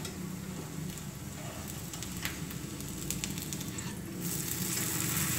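Maize-flour roti frying in oil in a nonstick pan: a steady sizzle with a few light clicks of the knife and spatula against the pan. About four seconds in, the roti is flipped and the sizzle grows louder as the raw side meets the hot oil.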